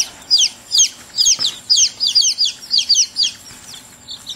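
Young downy chicks peeping: a run of shrill, falling peeps about three a second from several birds, easing off near the end.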